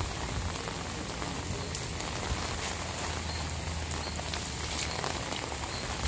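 Rain falling steadily, with scattered sharp drop hits standing out from the even patter.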